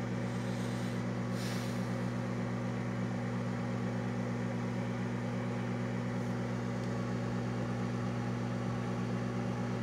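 Countertop microwave oven running its heating cycle: a steady low hum.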